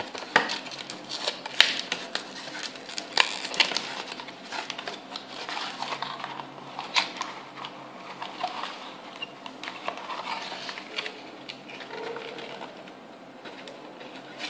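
Cardboard packaging being handled and pulled open, with a quick run of crackling clicks in the first four seconds or so, then softer rustling and scraping as the recorder is taken out of its tray.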